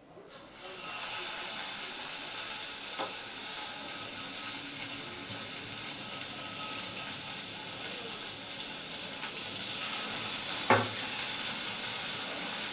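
Salted, turmeric-rubbed tangra fish sizzling in a hot pan brushed with a little mustard oil, the sizzle starting as they are laid in and then holding steady. Two light knocks, one about 3 seconds in and one near the end.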